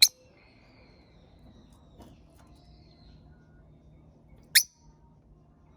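Peach-faced lovebirds calling: two short, sharp, shrill shrieks, one at the start and one about four and a half seconds in, with faint thin chirps between them.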